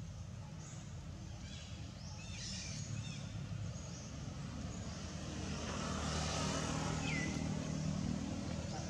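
Steady low hum of a motor vehicle's engine, growing louder in the second half, with a few faint high chirps over it.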